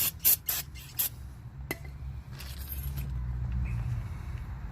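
An aerosol spray can being pressed in short bursts, four quick sprays in the first second, followed by a single sharp click and a low steady background rumble.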